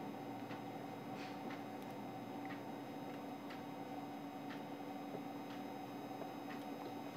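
Low steady room hum with a faint tick about once a second.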